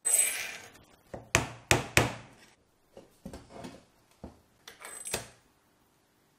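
Metal parts clinking and knocking as headset parts are fitted onto a bicycle suspension fork's steerer tube. There is a ringing clink at the start, then three sharp knocks close together, followed by softer rattles and one more sharp knock near the end.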